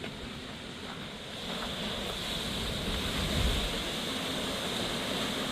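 Steady rushing of sea surf and wind, with wind buffeting the microphone; it grows louder about a second and a half in.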